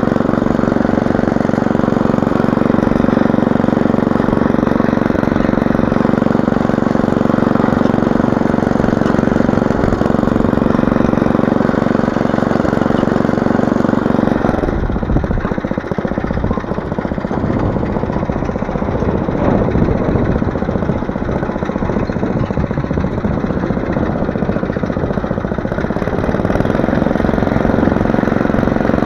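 Small petrol engine of a walk-behind motor hoe running steadily under load while its tines cultivate between sugar beet rows. About halfway through the steady hum turns rough and irregular for a stretch, then evens out again near the end.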